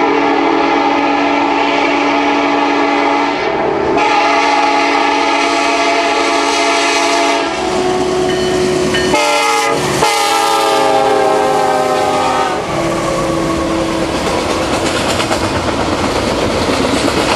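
Union Pacific diesel locomotives' multi-chime air horn sounds in several long blasts, its pitch dropping as the locomotives pass. The horn stops about twelve and a half seconds in, and the double-stack container train rolls past with steady wheel rumble and clickety-clack.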